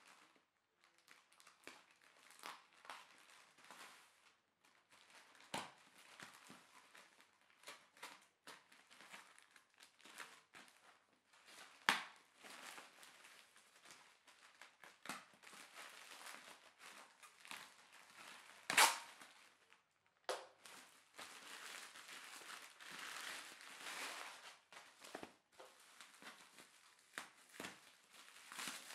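Plastic mailer bag being cut and torn open by hand: crinkling and rustling plastic broken by several sharp snaps, the loudest about two-thirds of the way through. Near the end comes a denser run of crinkling as the bubble-wrapped parcel inside is handled.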